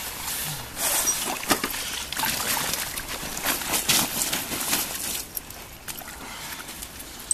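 Water poured from a bottle over a freshly landed carp, splashing and trickling for about five seconds before it stops.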